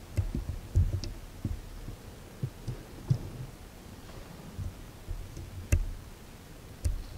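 Irregular soft low thumps with a few sharp clicks, the sharpest about six seconds in and another just before seven seconds.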